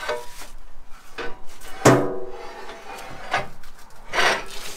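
Heavy steel parts knocking and scraping together as a steel cross member is worked into place against an engine cradle: a few knocks, one loud clank that rings briefly about two seconds in, and a rough scrape near the end.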